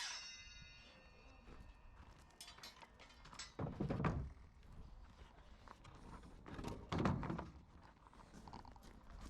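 A power tool's whine fading as it coasts to a stop, then two dull thunks about three seconds apart with lighter knocks and taps between them, as plywood boards are handled in a woodworking shop.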